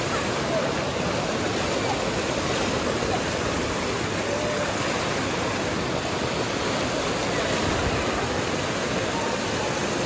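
Water fountain with many vertical jets, splashing steadily down into a shallow basin.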